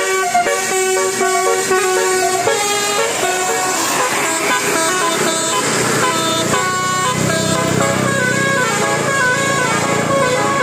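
Bus telolet horn, a set of multi-tone air horns, playing a tune of stepped notes, several tones sounding together and changing pitch every fraction of a second. A low steady hum joins underneath about halfway through.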